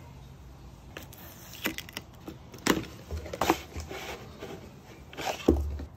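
Unboxing handling noise: cardboard scraping and rustling as a wooden router-bit case is slid out of its cardboard sleeve, with several knocks and a heavier thump near the end.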